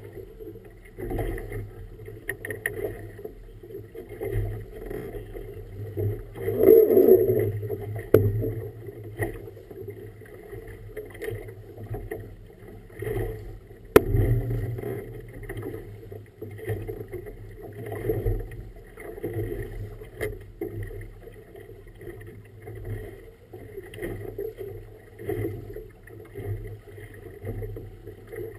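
Choppy river water slapping and sloshing against the hull of a small boat in uneven surges, the biggest about a quarter of the way in. A single sharp knock comes about halfway through.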